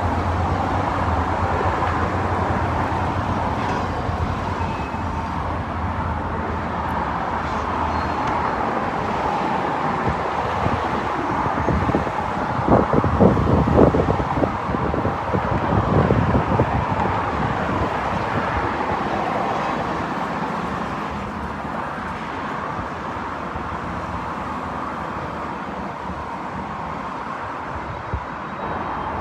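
Freight train cars rolling slowly over a railroad hump, with a steady rumble of wheels on rail. A low steady hum fades after the first several seconds, and a run of rapid clanking knocks comes a little before halfway.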